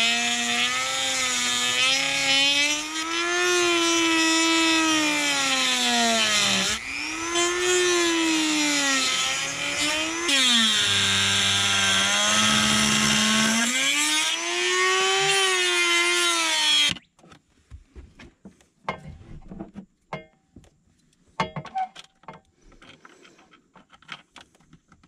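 Dremel rotary tool with a cut-off wheel cutting into a plastic dash trim panel, its high motor whine wavering up and down in pitch. The tool stops abruptly about two-thirds of the way through, followed by scattered light clicks and knocks as the panel is handled.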